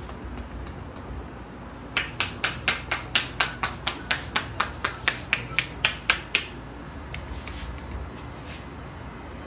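A rapid, even run of sharp hand slaps, about four or five a second for roughly four seconds, from a barber's percussive hand-tapping during a head massage. A few fainter clicks come before it.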